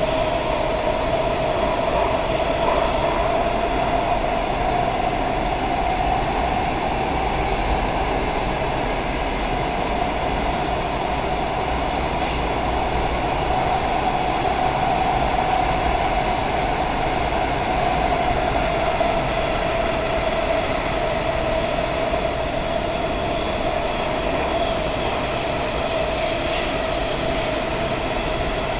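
Washington Metro 7000-series railcar running at speed through a tunnel, heard from inside the car: steady rumble and rail noise under a constant mid-pitched whine that drifts slightly up around the middle and back down.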